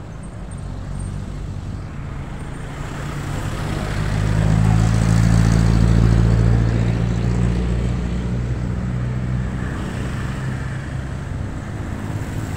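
A motor vehicle passing close on the road: its engine hum and tyre noise build, are loudest about five to seven seconds in, then fade away, over a steady traffic background.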